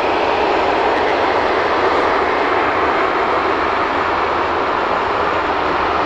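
Air North Boeing 737-500's CFM56 jet engines running with a steady rushing noise as the airliner rolls along the runway after landing.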